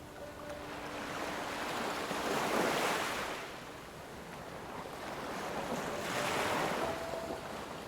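Ocean surf, waves washing in and drawing back in slow surges. The wash swells to a peak about two and a half seconds in and again around six seconds, easing off in between.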